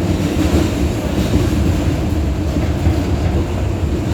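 New York City Subway 2 express train, an R142 car, running at speed between stations, heard from inside the car: a steady, loud rumble of wheels on the rails.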